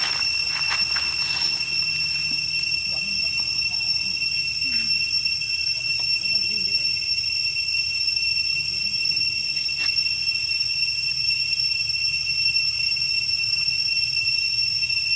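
A steady, high-pitched whine held at one pitch throughout, with a few faint clicks and brief low sounds underneath.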